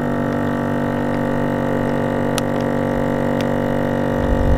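Mooka vacuum sealer's pump running with a steady droning hum as it draws the air out of a plastic bag, with a few faint ticks over it.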